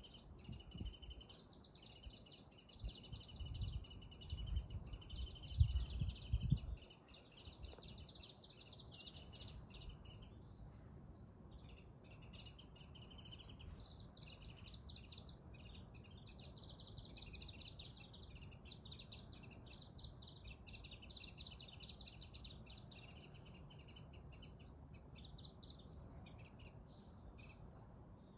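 Small birds chirping and twittering continuously, several calls overlapping, with a brief lull about ten seconds in. Low rumbling thumps come and go during the first several seconds.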